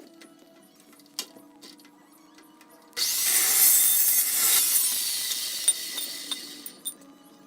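Carbide-tipped cold cut saw cutting through steel square tubing: a loud, high-pitched cut that starts suddenly about three seconds in and fades away over the next four seconds.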